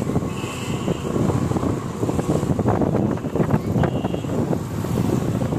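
Wind buffeting the microphone on a moving motorbike or scooter, over road and traffic noise. Two short high-pitched beeps sound about half a second in and again near four seconds.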